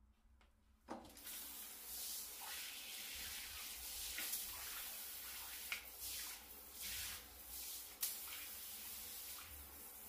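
Water comes on suddenly about a second in and sprays steadily from a handheld filter shower head onto ceramic wall tiles, with a spattering hiss. Two sharp clicks stand out later on.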